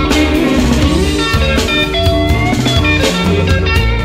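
Background blues-rock music with electric guitar, some notes sliding in pitch, over a steady drum beat.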